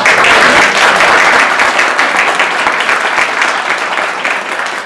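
Audience applauding: many people clapping, starting loud all at once and slowly tapering off.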